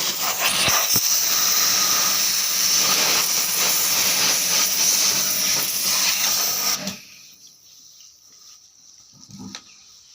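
High-pressure water jet spraying with a steady loud hiss, which cuts off suddenly about seven seconds in.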